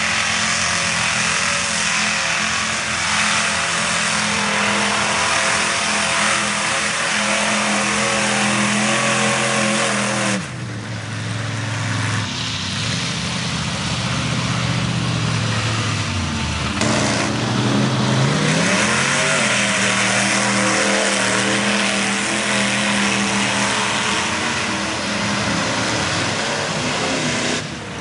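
Lifted mud truck's engine held at high revs while driving through a mud pit. About halfway through, the revs drop away and then climb again.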